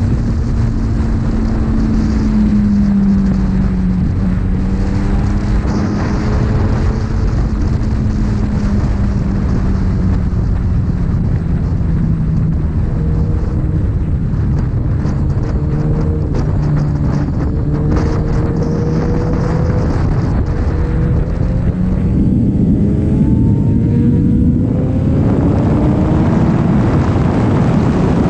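Sport motorcycle engine running at road speed under heavy wind and road noise. Its pitch sinks slowly through the first half or more as the bike eases off, then climbs again near the end as it accelerates.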